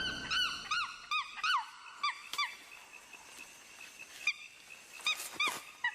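Young chimpanzees screaming under attack by another female: a rapid run of short, high, rising-and-falling shrieks, then a few more spaced-out shrieks near the end.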